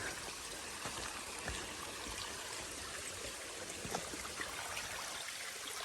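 Small mountain stream running steadily, a continuous even rush of water.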